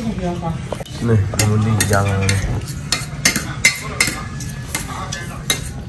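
Utensil knocking and scraping in a cooking pot as food is stirred, with several sharp clinks about three to five seconds in.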